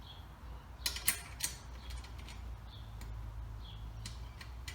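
Steel wheelbarrow legs and bolts being handled and fitted, with a few quick metallic clicks and rattles about a second in and light creaking.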